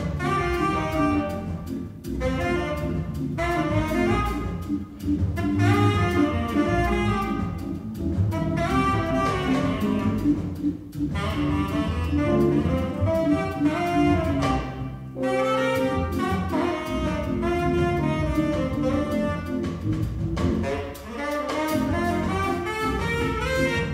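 Live jazz quartet playing, with a saxophone carrying the melody in phrases of a few seconds over double bass, drums and keyboard.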